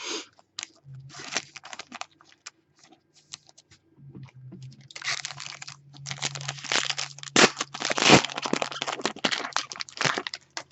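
Packaging crinkling and tearing as a trading card pack is opened by hand. Scattered small clicks at first, then about five seconds of dense crackling, with two sharp cracks in the middle.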